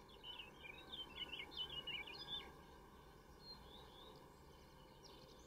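A songbird singing a rapid, twittering phrase of quick high notes lasting about two and a half seconds, then a brief call about a second later, over faint outdoor background noise.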